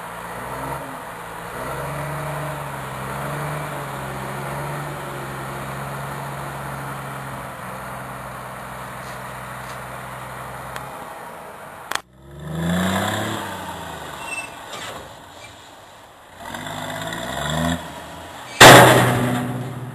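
Scania P114 dump truck's diesel engine running steadily while the hydraulic tipper raises the loaded body. After a sudden cutoff about 12 s in, a truck engine revs up and down twice, and a loud sudden burst of noise comes near the end.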